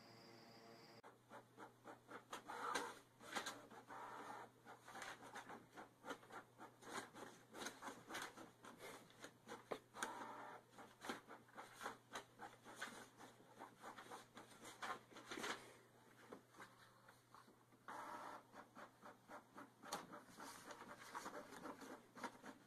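Inkjet printer feeding out paper while a cat paws at the sheets: a string of soft, irregular clicks, scrapes and paper rustles over a faint steady hum.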